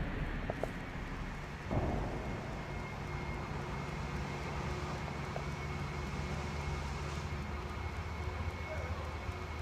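A steady low engine drone, with a faint high whine held through it; a brief louder noise comes about two seconds in.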